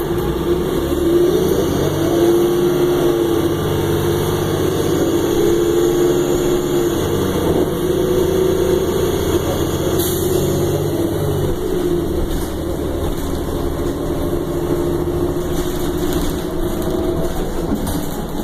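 2009 Orion VII transit bus running along the road, heard from inside the passenger cabin: engine and drivetrain drone with a steady tone that rises and falls slightly in pitch as the bus speeds up and eases off.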